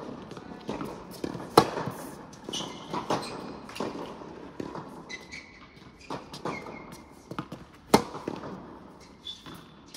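Tennis balls struck by rackets and bouncing on a hard court during a rally, each hit a sharp pop that rings on in a large echoing hall. The two loudest hits come about a second and a half in and near the end, with fainter hits and bounces between and a few short high squeaks.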